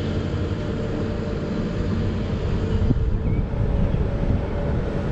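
A steady engine or motor drone with several held low tones.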